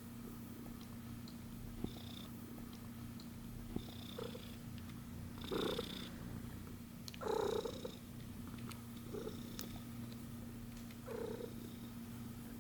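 Cat purring steadily, with a few short soft sounds over it, the loudest about seven seconds in.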